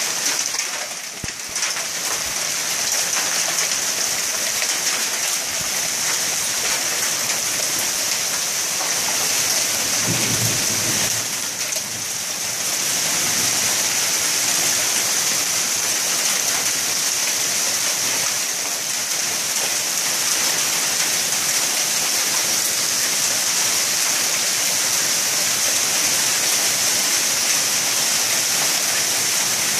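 Dense sleet falling, a steady hiss of ice pellets striking the ground and surfaces.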